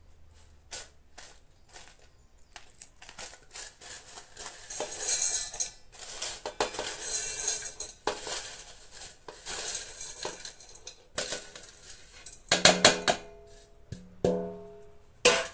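Dried grated beetroot flakes rustling and scraping as they are pushed by hand off a stainless steel plate into a steel mixer-grinder jar, with clicks of steel on steel. Two brief ringing tones sound near the end.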